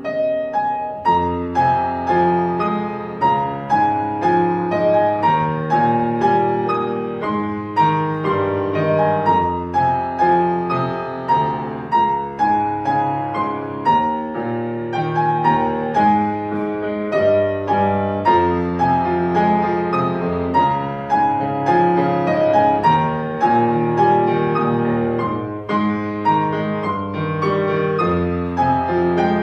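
Solo piano playing a melody over a lower accompaniment, the notes struck at a steady, even pace.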